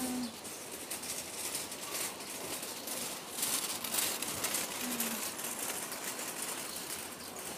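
Outdoor ambience while walking with a phone: a steady hiss with a louder patch of rustling and handling noise around the middle, and one short low tone about five seconds in.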